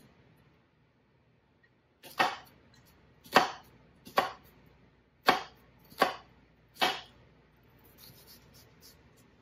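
Chef's knife slicing through a large onion and striking a wooden cutting board: six sharp chops under a second apart, starting about two seconds in, with a few faint clicks near the end.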